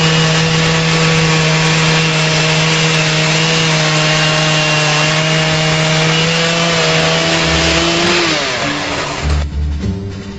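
Two-stroke gasoline chainsaw running at full throttle with its bar buried in an upright log, a steady engine note over the cutting noise. A little past eight seconds in, the engine slows and the cutting stops, and brass music comes in near the end.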